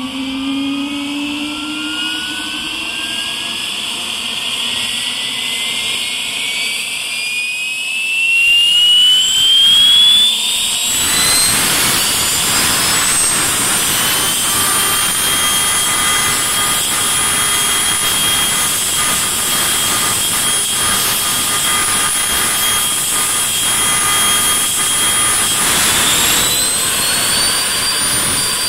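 Blackburn Buccaneer's number 2 jet engine being blown over, spun on its starter without lighting up. Its whine rises steadily in pitch for about ten seconds, a rush of air comes in at about eleven seconds, and the whine holds steady before rising again near the end.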